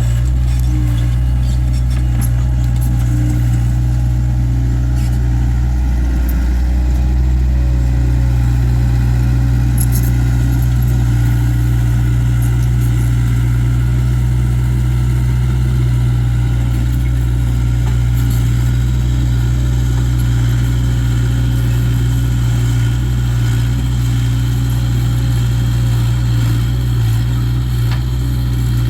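Takeuchi TL26 track loader's diesel engine running steadily at working speed, with a few faint clicks.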